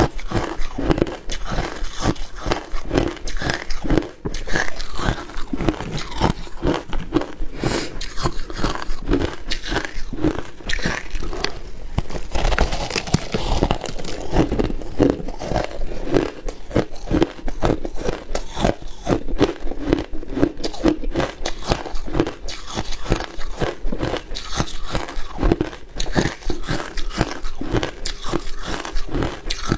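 Close-miked crunching of hard crushed ice being bitten and chewed: a rapid, unbroken run of crisp crunches, several a second.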